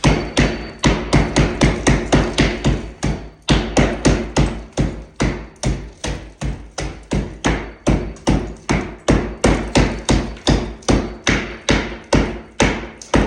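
Hammer blows on a plaster wall, steady strikes about three a second that stop just before the end. The plaster is hard going, which the worker puts down to cement in it.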